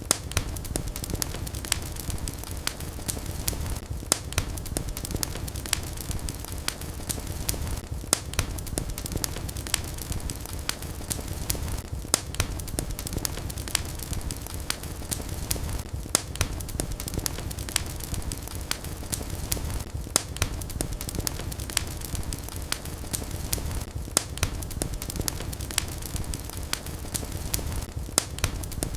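Wood fire crackling in a fireplace: a steady low rumble of flames with scattered sharp pops and snaps, a louder pop coming about every four seconds.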